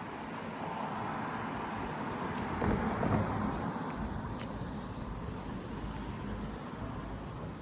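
A road vehicle passing, its noise swelling to a peak about three seconds in and then easing off, with a few faint sharp clicks.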